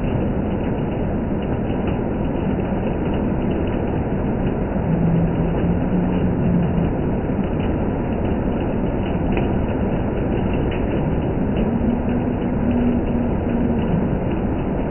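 Heavy hail and rain beating down steadily: a dense, loud roar with scattered sharp ticks of hailstones striking.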